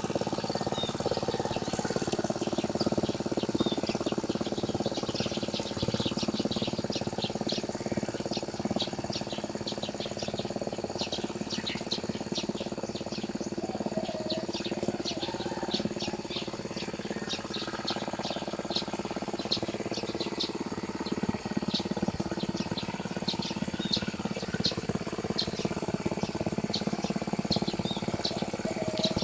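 Birds chirping over and over with short, high calls, above a steady low drone.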